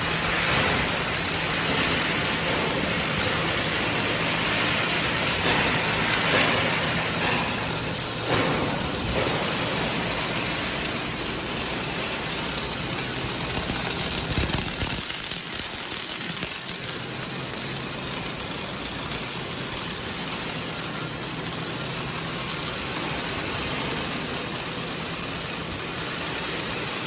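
Robotic arc-welding torches welding heavy steel plate: a steady hiss of the welding arcs over a low machine hum, the hum fading about halfway through.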